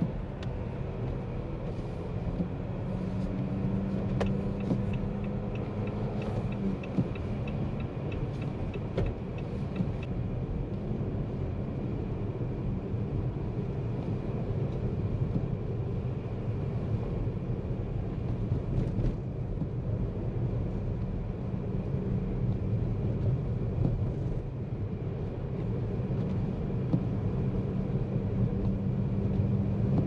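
2023 Jeep Compass e-Hybrid driving, its 1.5-litre four-cylinder petrol engine and the road making a steady low rumble and hum. A run of quick, regular ticks sounds for several seconds near the start.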